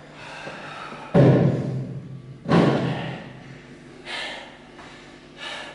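A man breathing hard, winded straight after a heavy set of barbell back squats: two loud, heavy exhales about a second and a half apart, then two quieter breaths.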